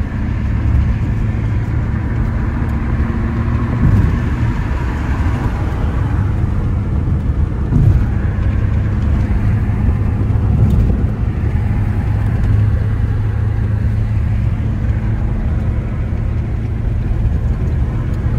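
Steady road and engine rumble inside the cabin of a moving car, heard from the back seat.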